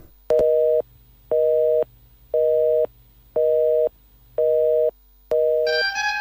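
Telephone busy tone: six short beeps of a steady two-note tone, about one a second, the sign that the phone call has been cut off. Music comes in near the end.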